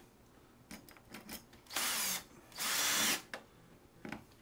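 Power drill running in two short bursts of about half a second each on the self-tapping screws of the metal blind brackets, after a few light clicks of handling.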